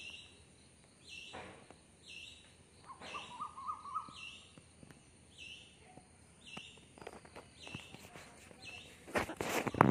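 A bird calling the same short, high note over and over, about once a second, behind a faint steady hiss. Near the end, loud rustling close to the microphone.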